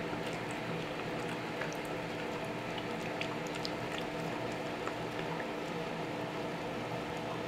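A British Shorthair cat chewing and tugging at a strip of chicken-breast jerky, with scattered faint wet clicks and smacks over a steady background hum and hiss.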